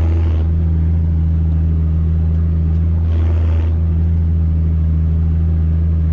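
Deutz-Fahr Agrotron M610 tractor's diesel engine running steadily under load while pulling a reversible plough through the soil, heard from inside the cab. A brief rush of noise comes about three seconds in.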